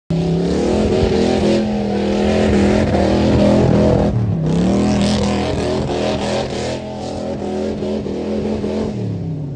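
Ford mud truck's engine running hard as it drives through a mud pit; the revs dip about four seconds in, climb again, and fall away near the end.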